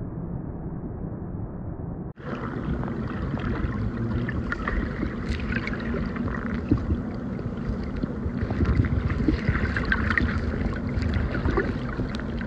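Water rushing over a small waterfall into a pool, heard muffled. About two seconds in it cuts to a microphone underwater, where bubbling and crackling run over a low rumble as swimmers move through the water.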